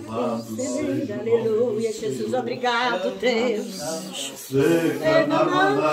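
Hymn singing: a man's voice through a microphone leads, with other voices singing along, holding long wavering notes.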